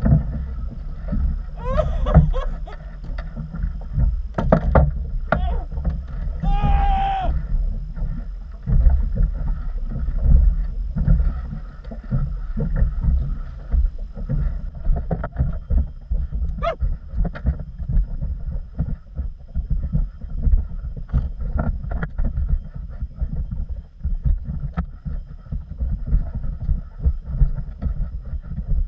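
Wind rumbling and buffeting on the microphone aboard a small boat at sea, low and uneven throughout, with a voice for a few seconds near the start.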